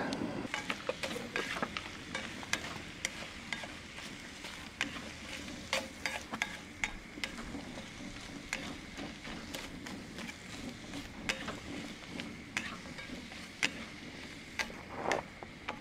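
Coffee percolator on a stove, slow to come to the perk: a steady low hiss with scattered small pops and ticks, a few a second.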